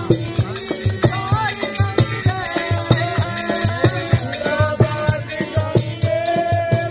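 Devotional bhajan: a harmonium holds sustained reedy chords under a man's singing voice, driven by a fast, steady rhythm of wooden kartal clappers with jingling metal discs and a low pulsing beat.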